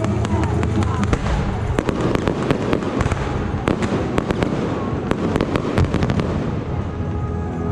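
Aerial fireworks going off in rapid succession: many sharp bangs and crackling pops, thickest from about two to six seconds in.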